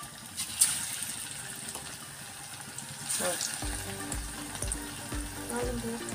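Cornflour-coated chicken 65 pieces deep-frying in oil in an aluminium kadai: a steady sizzle with crackling. About half a second in, a fresh piece dropped into the oil gives a sharp crackle, and a few soft low thumps come in the second half.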